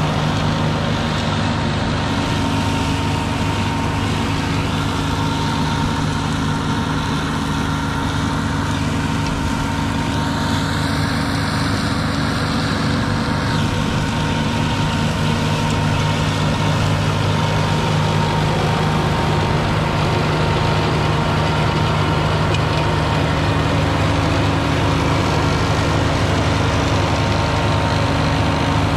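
Engine and front flail mulcher of an IRUS Deltrak 2.5 remote-controlled tracked slope mower, running steadily as it mulches tall grass.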